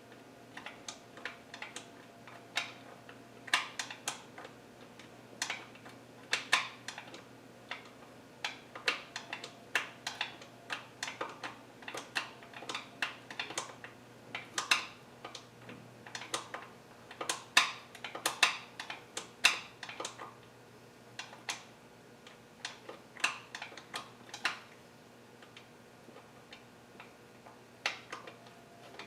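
Hand socket ratchet clicking in short, irregular bursts while loosening the upper oil pan bolts, with a quieter pause near the end.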